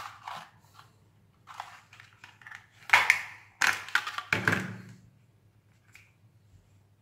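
Thin clear plastic blister packaging crackling and rustling as a headlamp is pulled out of it by hand. It comes as irregular crinkles and taps, loudest in a burst about three to four and a half seconds in.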